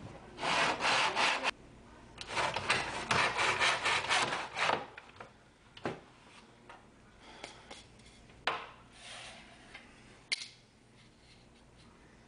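Hand saw cutting through MDF in a miter box with quick back-and-forth strokes in two spells, stopping about five seconds in. A few short knocks follow.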